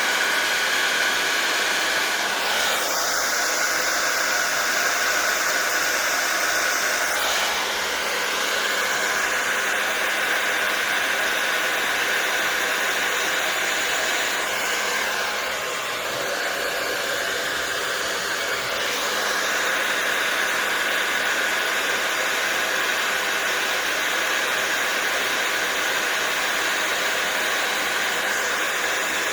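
Hair dryer with a nozzle attachment running steadily, an even rush of air with a high whine, its tone shifting slightly a few times as it is moved while blowing wet acrylic paint.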